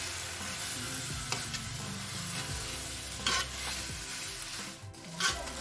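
Metal spatula stirring fried rice vermicelli with cabbage, greens and chicken in a wok: a steady sizzle of frying, with a few sharp scrapes of the spatula against the pan.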